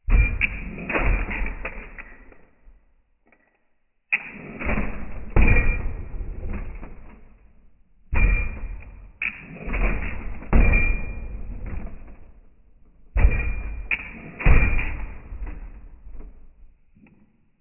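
A '62 A-arm lowrider hopper hopping, its back bumper banging down: four bursts of repeated sharp bangs and thuds, each burst lasting three to four seconds with short pauses between.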